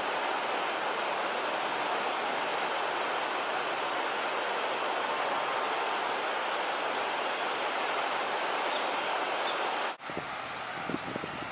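Steady, even rushing noise with no pitch. About ten seconds in it cuts off abruptly to a quieter outdoor ambience with a few low thumps.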